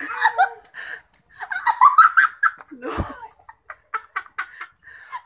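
A small child laughing, giggling and babbling in a high voice, with a dull thump about three seconds in.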